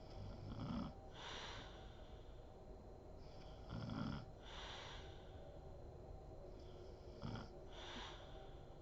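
A sleeping woman snoring: three low snores about three seconds apart, each followed by a breathy, hissing breath.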